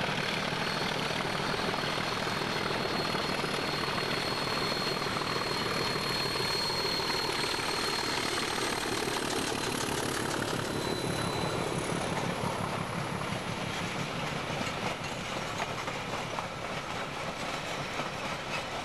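Diesel locomotive hauling a passenger train up a steep 1:40 grade, its engine working hard under load as it passes, with a steady high whine through the first half. From about halfway the carriages roll by, their wheels clicking over the rail joints.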